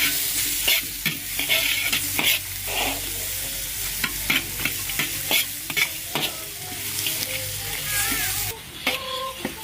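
Food frying in a pan with a steady sizzle, while a utensil stirs and scrapes it with frequent short clicks and knocks. The sizzle drops lower near the end.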